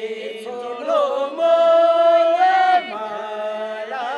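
A solo voice singing a slow, chant-like melody, with one long held note in the middle that rises a little at the end and breaks off, then softer singing going on.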